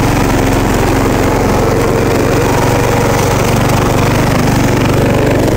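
Newly installed Briggs & Stratton engine on a riding lawn tractor, running steadily at a constant speed.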